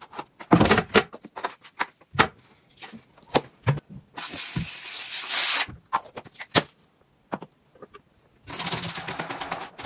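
Household handling sounds: a run of sharp knocks and clatters, a hissing burst about four seconds in that lasts just over a second, and a steady rushing noise starting near the end.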